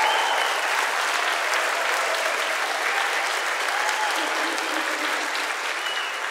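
Church choir and congregation applauding at the end of a gospel song, a dense clapping that slowly fades toward the end.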